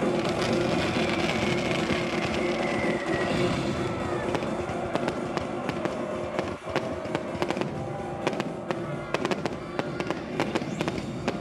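Fireworks bursting and crackling over music, with sharp bangs coming thick and fast from about halfway through.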